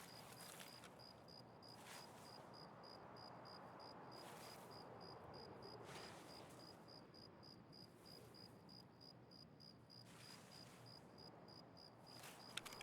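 Near silence with a faint insect chirping steadily: short, high chirps at one pitch, about three a second.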